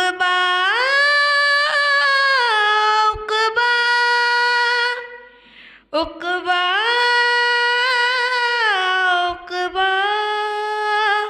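A young woman singing an Urdu naat solo into a microphone, without instruments: two long melodic phrases of drawn-out, sliding notes, with a short breath between them about five seconds in.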